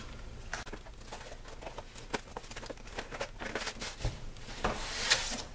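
Plastic shrink-wrap crinkling and tearing as a cardboard box is unwrapped and opened, with scattered handling clicks, a couple of dull bumps, and a longer tearing rustle near the end.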